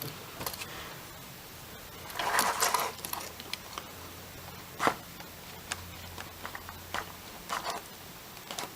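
Nylon zip tie being worked around a drone's ESC: a short rasp as the tie is pulled through its lock about two seconds in, a sharp click near the five-second mark, and light handling ticks.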